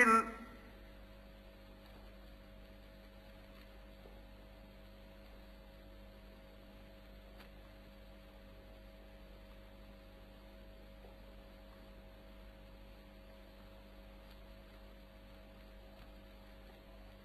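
Faint steady hum and light hiss of an old, band-limited recording in a pause of Quran recitation; the reciter's voice trails off about half a second in.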